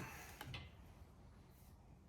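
Near silence, with two faint clicks in the first half second.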